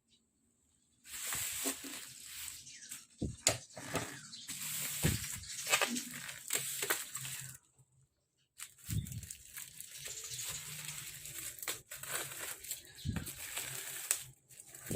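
Packaging of a keyboard set being handled and unwrapped: irregular rustling and clicking, with a few soft thumps and a short pause about eight seconds in.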